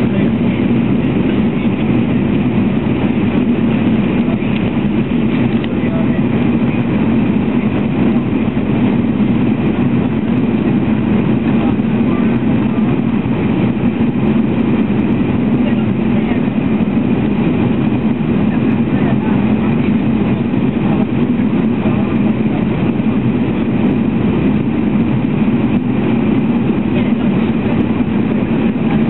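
Steady, unbroken rumbling drone of a running vehicle, even in level throughout.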